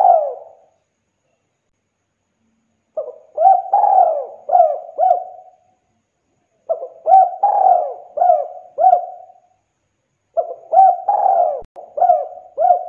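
Spotted dove cooing. There are three phrases of several coos each, starting roughly every three and a half seconds with short silences between, and the end of an earlier phrase fades out at the very start.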